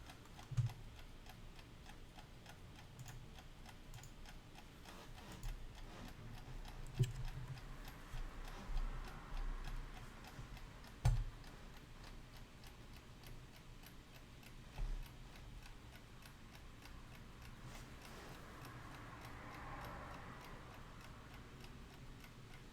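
Vintage Batman wind-up mechanical alarm clock ticking steadily and faintly after being wound. A few single knocks stand out over the ticking.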